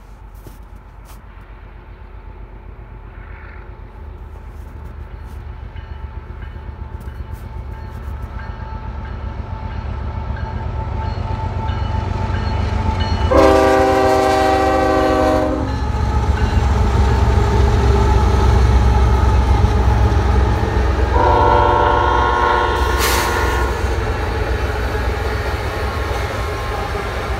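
Union Pacific freight train's diesel locomotives approaching and passing, their low engine rumble growing steadily louder. The locomotive horn sounds twice, each blast about two seconds long: once about halfway through and again some eight seconds later, the second higher in pitch.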